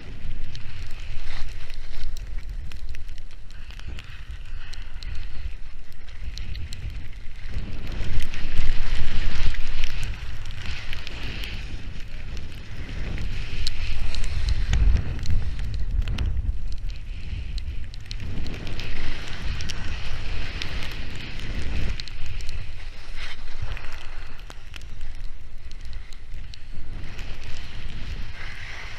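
Storm wind buffeting an action camera's microphone in gusts, with the hiss of skis sliding over snow. The loudest gust comes about eight seconds in.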